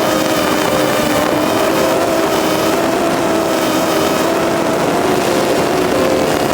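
DJI Phantom 2 quadcopter's motors and propellers running in flight: a steady buzzing whine of several tones that shift slightly in pitch as the motors adjust speed.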